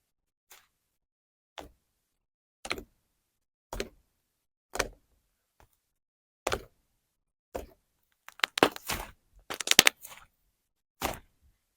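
Fluffy slime being squished and poked by hand: separate soft squishes about once a second, then a quick run of small crackling pops near the end.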